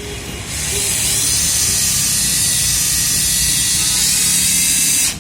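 Cordless drill/screwdriver motor running unloaded at full speed with the trigger held, a steady high whirring hiss that starts about a third of a second in.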